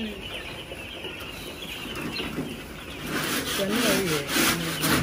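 Rhythmic scraping strokes start about three seconds in, roughly two to three a second, like something being scrubbed or scraped by hand.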